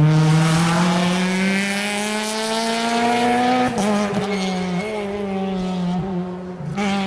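Rally car engine at full throttle, its pitch rising steadily for about three and a half seconds, then dropping sharply and running on at lower revs with several brief dips.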